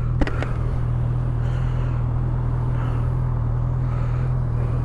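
Honda CB1000R's inline-four engine idling steadily, its pitch holding constant.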